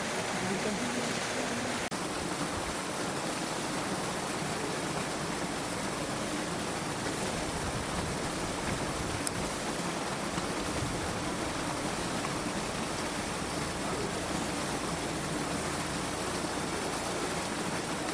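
Steady rushing noise with no clear pitch, with one faint sharp click about nine seconds in.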